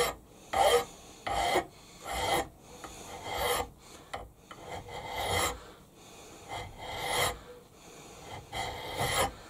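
Flat hand file scraping across a model steam engine's cylinder casting in repeated strokes, roughly one a second. The strokes dress down a mismatch between the casting's parting lines.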